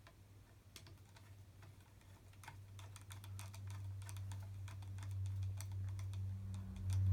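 Flathead screwdriver turning the takedown screw back into the stock of a Marlin Model 15YN .22 rifle: a run of small, irregular clicks and ticks of the blade working in the screw slot. Under it a low hum grows louder toward the end.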